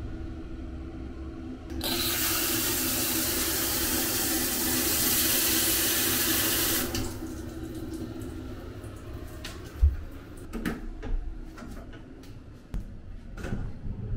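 Hand-held shower spraying water for about five seconds, then shut off abruptly. Scattered knocks and clicks follow, one sharp thump the loudest among them.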